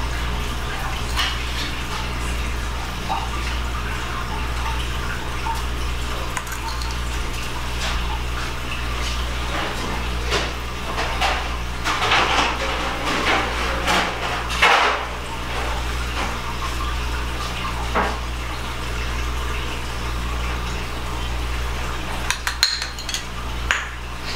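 Light clinks and taps of a small glass seasoning bowl and a basting brush against a roasting pan as seasonings are sprinkled over a whole raw chicken, over a steady low hum. The clatter thickens about halfway through, with a sharp knock or two after it.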